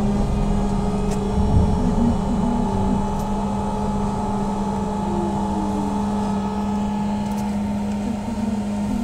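Cabin sound of a BKM 321 trolleybus on the move: a steady electric hum over road rumble, with a bump about one and a half seconds in.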